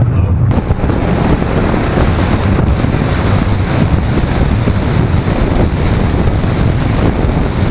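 Steady, loud rushing of wind buffeting the microphone.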